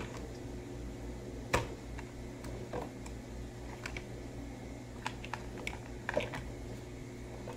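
Hard plastic toy parts clicking and knocking as pink plastic wheels are pushed onto the axles of a toy cart. One sharp click comes about one and a half seconds in, and a run of smaller clicks comes later.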